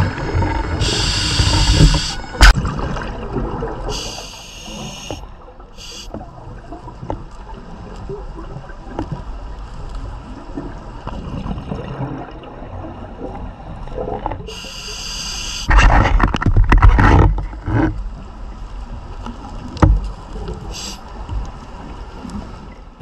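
Scuba regulator breathing heard underwater: several short hissing inhalations, and about two-thirds of the way through a loud rush of exhaled bubbles.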